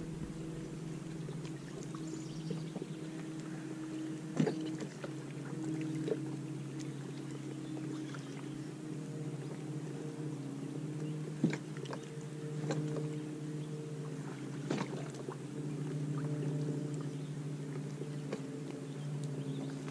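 Kayak sounds while a hooked fish is played: a steady low hum throughout, light water noise, and a few sharp knocks, the loudest about a third of the way in and another near the three-quarter mark.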